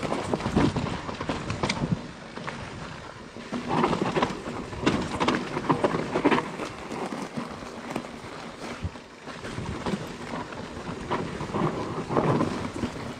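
A mountain bike riding over a rough, rocky trail: tyres rumbling and crunching on stones and roots, with the bike rattling and knocking at each bump in irregular surges.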